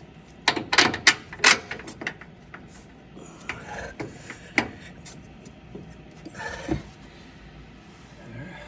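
Metal parts clinking and scraping as a bolt is worked through the upper control arm mount: a quick run of sharp clinks in the first two seconds, then a few scrapes and knocks.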